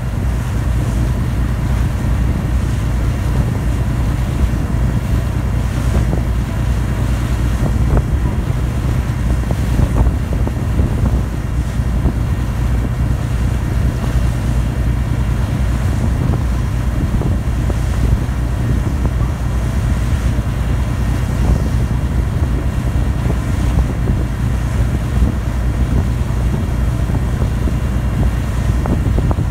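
Ferry under way: the ship's diesel engines give a steady low rumble, with wind buffeting the microphone.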